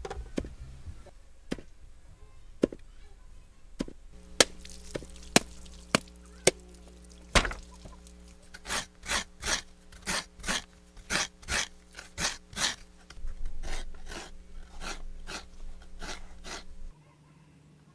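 Repeated hard strikes on wood, like chopping or pounding: a few single blows, then a quick run of about two to three a second, over a steady low hum that cuts off near the end.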